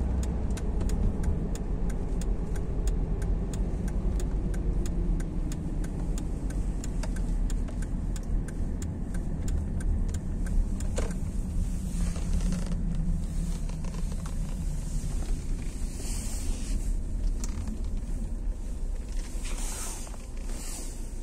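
Cabin noise of a Volvo XC60 on the move: a steady low engine and road rumble as the car slows from about 60 to 40 km/h off the throttle, coasting in Drive. A light regular ticking runs through the first half, and there is a single click about eleven seconds in.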